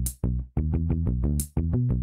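Electronic backing music with a fast steady beat under held synthesizer notes, cutting out for a split second two or three times.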